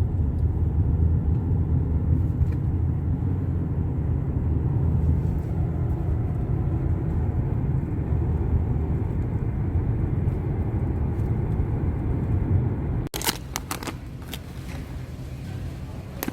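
A steady low rumble that cuts off suddenly about thirteen seconds in, followed by quieter sound with a few sharp clicks.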